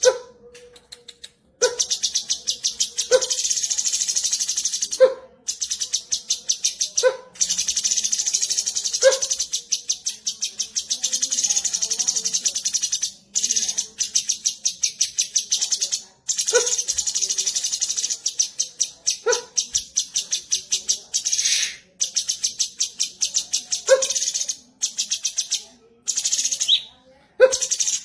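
Cucak cungkok bulbul song as used for masteran training: short lower notes repeated every couple of seconds over a fast, high-pitched pulsing trill that breaks off briefly now and then.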